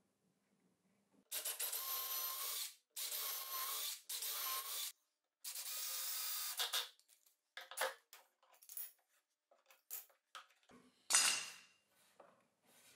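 Cordless drill-driver driving screws into plywood in four short runs of a second or so each, followed by scattered clicks and knocks of handling and a louder clatter near the end.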